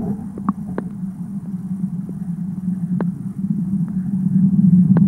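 Muffled, steady low rumble of water heard through a camera held under the surface of a dog's swimming pool, with a few scattered sharp clicks, while a dog paddles overhead.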